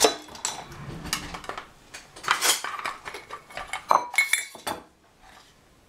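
Metal spoon clinking and scraping against a bowl in a run of irregular knocks and short scrapes, dying away about five seconds in.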